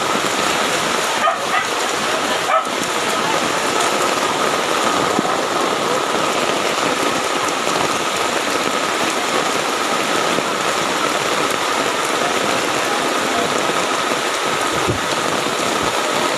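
Heavy rain falling steadily, with floodwater running over the road.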